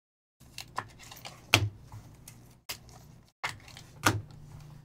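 Trading cards and clear plastic sleeves or top loaders being handled on a table: a run of light clicks and taps, with two sharper knocks about one and a half and four seconds in.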